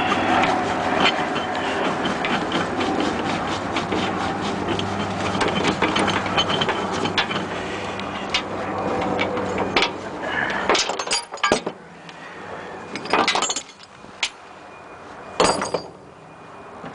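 An engine idling steadily under light metallic clinks. About ten seconds in the engine sound falls away, and steel tie-down chains clank and rattle in several loud bursts as they are handled.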